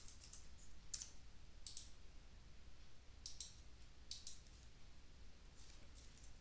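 A handful of faint, sharp clicks from a computer keyboard and mouse buttons, scattered a second or so apart, some coming in quick pairs.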